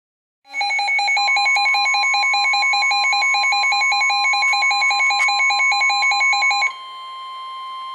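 Weather radio emergency alert tones for a flash flood warning: a loud, rapidly pulsing electronic beep, joined about a second in by a steady high tone near 1 kHz (the NOAA Weather Radio warning alarm tone). The beeping stops near the end, leaving the steady tone quieter.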